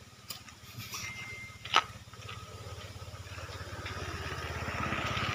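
A small engine running with a low, even pulse, growing louder toward the end, with one sharp click a little under two seconds in.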